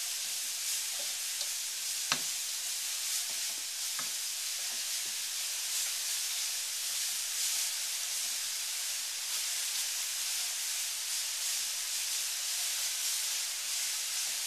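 Matchstick-cut carrots sizzling in oil and sugar in a hot wok, stirred and scraped with a wooden spatula: a steady frying hiss as the carrots begin to caramelize. The spatula knocks sharply against the wok about two seconds in, and more lightly about four seconds in.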